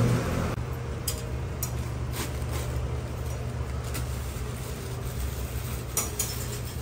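Street-stall background: a steady low hum, like distant traffic, with a few light clicks and taps as the vendor handles the wrapped rice ball at the counter.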